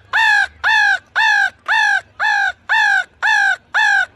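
A man imitating crow caws with his voice to call crows in: a quick, even string of eight loud "kaa" calls, about two a second, each falling slightly in pitch at its end.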